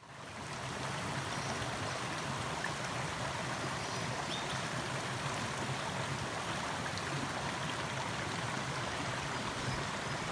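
Shallow rainforest creek running over rocks and small cascades, a steady rushing and trickling that fades in at the start.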